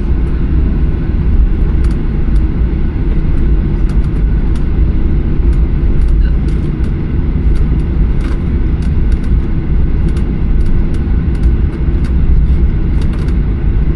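Steady low rumble inside the cabin of a Boeing 737-800, made by the engines and airflow, with faint clicks scattered throughout.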